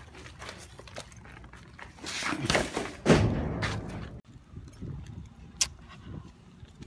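Footsteps and rustling as a handheld phone is carried and moved around, with a loud thump about three seconds in and a single sharp click near the end.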